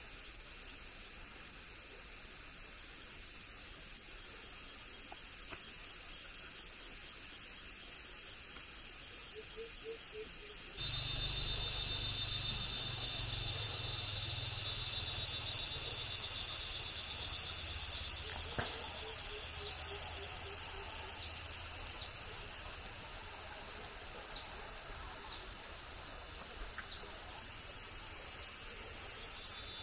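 Insects keep up a steady high-pitched drone. About a third of the way in a low rumble comes in and slowly fades, with a few scattered clicks and two short trilling chirps.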